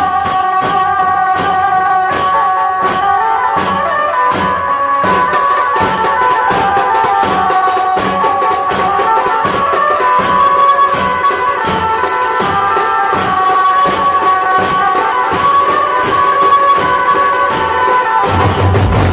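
Dhol-tasha drumming: a steady beat of sharp drum strokes with a ringtone-style melody played over it. Near the end the music changes to a different piece.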